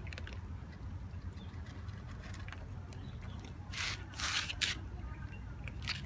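Cats eating dry kibble from a bowl: a few short crunching, rattling noises, the loudest cluster about four seconds in and another near the end, over a low steady rumble.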